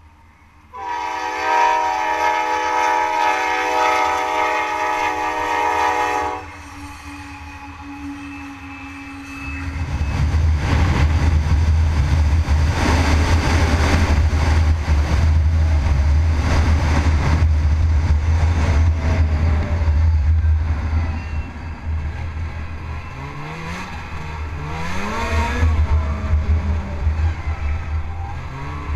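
A locomotive air horn sounds one long chord of several tones for about five seconds over an idling snowmobile. About ten seconds in, the snowmobile engine picks up and runs steadily as the sled travels the trail, with the revs rising and falling several times near the end.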